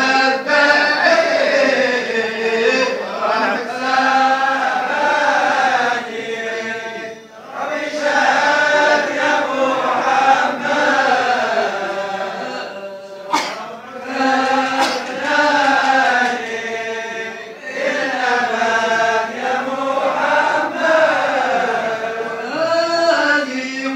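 A group of men chanting Sufi dhikr together in a long, rising and falling melody, phrase after phrase with short pauses between them.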